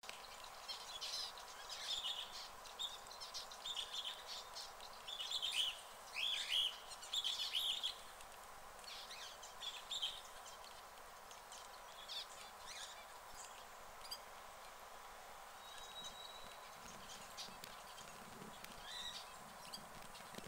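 Small birds chirping in quick runs of short calls, busiest through the first half and sparser later, over a faint steady hum.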